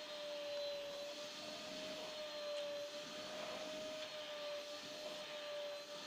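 Vacuum cleaner running steadily, its hose nozzle held against a playing cat's fur. It gives a steady high whine that wavers slightly in pitch, over an airy rushing noise.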